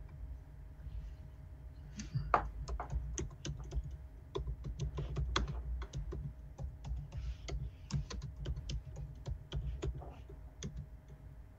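Typing on a computer keyboard: a run of quick, irregular key clicks starting about two seconds in and running until near the end, over a low steady hum.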